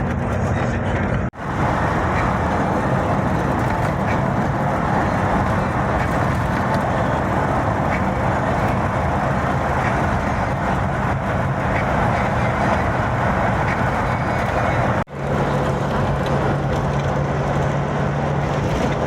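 Car driving along a road: a steady engine hum under loud road and wind noise, broken twice by an abrupt momentary drop-out, about a second in and again near the end.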